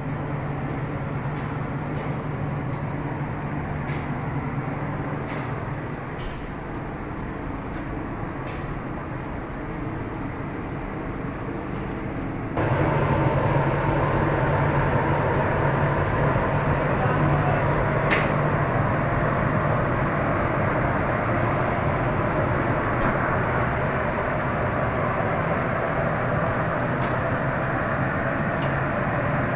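Boiler-room machinery running steadily: a constant low hum under a rushing noise. It becomes clearly louder about twelve seconds in.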